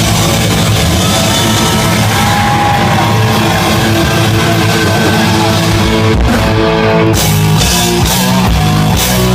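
Live hard rock band playing loudly, with electric guitars and drums.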